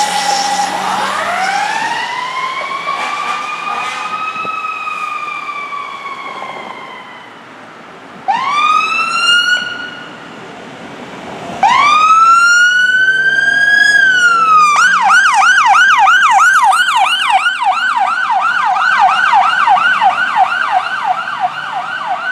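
Emergency vehicle sirens: a siren wail rising and then slowly falling as the fire engine pulls away, then the paramedic squad's siren giving two rising wails and switching to a fast yelp of about three to four cycles a second as it passes.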